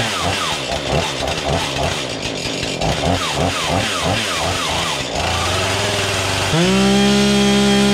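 Husqvarna 440 two-stroke chainsaw running, revved up and down in rapid throttle blips for about five seconds, settling briefly to a lower idle, then held at high revs from near the end. It runs well, though its low- and high-speed carburettor screws could use adjustment.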